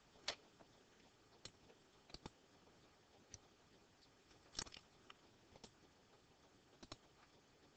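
Near silence: quiet room tone with a scattering of faint, short clicks every second or so, the loudest a little past halfway.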